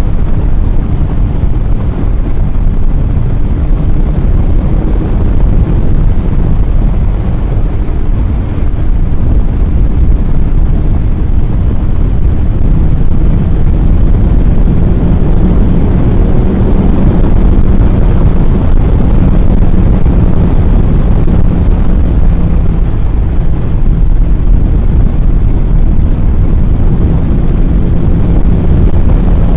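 Kawasaki ZX-14R inline-four engine running under way at road speed, mixed with heavy wind rush over the microphone. The engine note grows a little louder a bit before halfway through.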